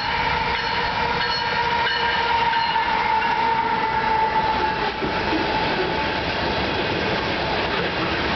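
A freight train's locomotive passing close, then loaded ethanol tank cars rolling by with steady wheel-on-rail noise. A steady high tone heard at first fades out about halfway through.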